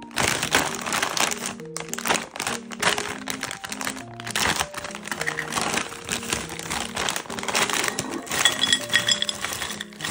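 Plastic bag of frozen edamame crinkling and rustling as it is handled, torn open and tipped out, over light background music.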